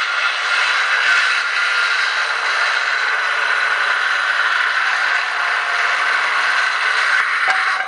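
Electric circular saw running and cutting across a wooden board: a steady high whine over the rasp of the blade through the wood.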